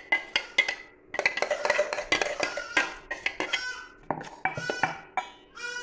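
A steel spoon scraping and knocking against a stainless-steel mixer-grinder jar and a steel pot as thick mango chutney is spooned out: many quick metal clinks and scrapes, densest in the first half.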